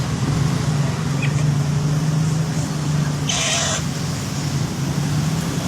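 Triton sulphur-crested cockatoo giving one short, harsh squawk about halfway through, over a steady low hum.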